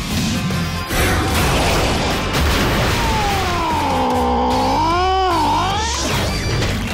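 Film-trailer music with a hit about a second in, then a long drawn-out cat meow that sinks in pitch, holds, and rises again before fading, starting about three seconds in.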